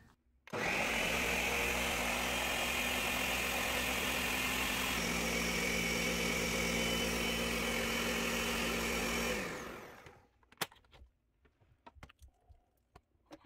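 Ninja countertop blender motor running steadily as it blends egg-and-milk flan custard, starting about half a second in; its pitch drops slightly about halfway, and it spins down after about nine seconds. A few sharp clicks follow as the lid is lifted off the jar.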